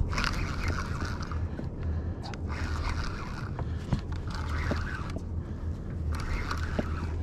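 Spinning reel being cranked in several short bursts, each under a second, with pauses between, as a lure is worked back. A steady low hum runs underneath.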